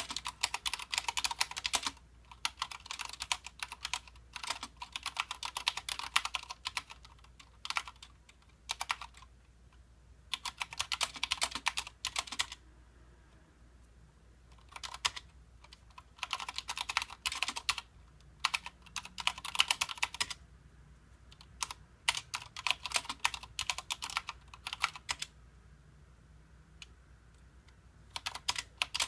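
Typing on a Mistel MD870 Sleeker mechanical keyboard with Cherry MX Red linear switches: fast runs of keystrokes broken by short pauses, the longest lasting two to three seconds.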